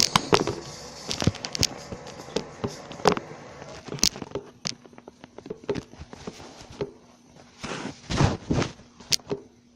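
Scattered light knocks and clicks of objects being handled and set down, with a couple of brief rustling scrapes about eight seconds in.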